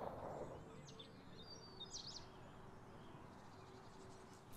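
Faint outdoor ambience with a few short, high bird chirps about one to two seconds in.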